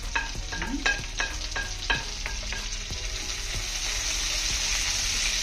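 A wooden spoon knocks about a dozen times in quick succession against a plate and pan as chopped curry leaves are scraped into hot oil with garlic. The frying then sizzles louder as the leaves hit the oil and are stirred.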